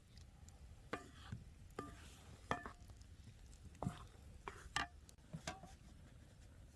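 Faint, scattered clinks and taps of kitchen utensils against dishes, about a dozen in all, some with a short ringing tone.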